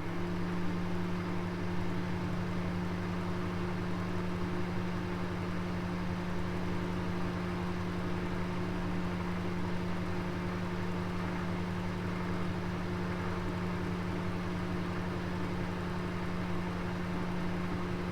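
Oven running: a steady low electric hum with an even rushing noise over it.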